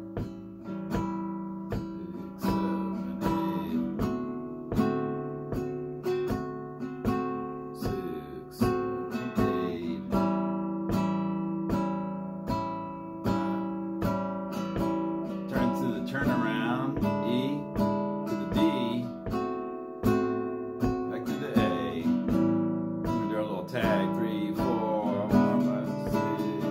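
Nylon-string classical guitar strumming an 8-bar blues in A, a steady rhythm of chord strokes cycling through A7, D7 and E7.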